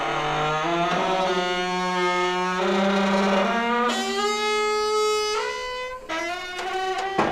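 Tractor loader bucket lowering, its metal joints squeaking in a run of long squeals that jump from one pitch to another. Shorter squeaks follow, then a knock near the end.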